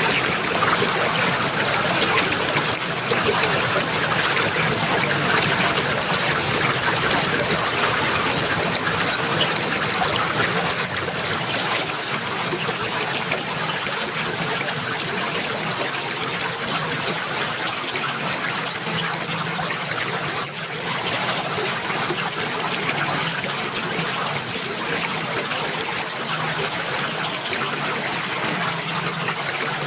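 Running water trickling steadily, a little softer from about eleven seconds in.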